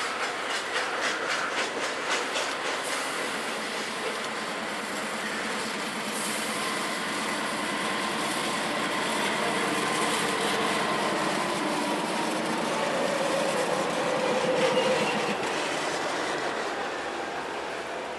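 Freight trains passing close below: wheels clicking over rail joints at first, then CSX diesel locomotives and a string of covered hoppers rumbling past, getting louder as the locomotives come by. A faint steady high tone runs over the rumble.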